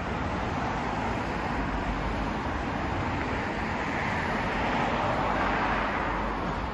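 Road traffic on a wet street: an even tyre hiss that swells as a vehicle passes about five seconds in, then eases.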